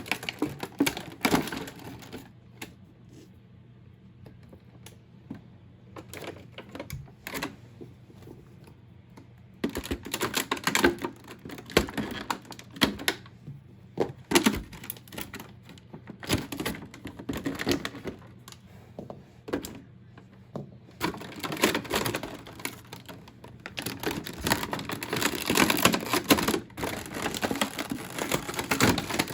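Hands handling a boxed doll's packaging: irregular clusters of sharp clicks, scrapes and rustles of cardboard and plastic, quieter for a few seconds in between.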